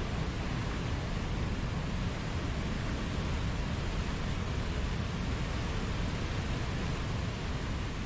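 Mountain waterfall: a steady, unbroken rush of falling water.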